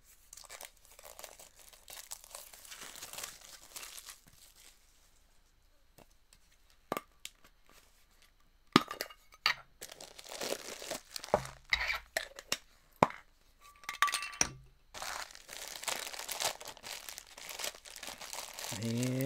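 A metal Funko Soda collectible can being opened by hand. There are a series of sharp metallic clicks and clinks through the middle, and plastic wrapping crinkles near the start and again in the last few seconds.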